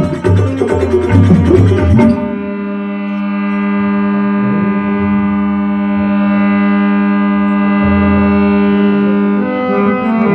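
Bhajan accompaniment: drum and cymbal percussion plays for about the first two seconds and stops, leaving a harmonium holding one long chord, which moves on to new notes near the end.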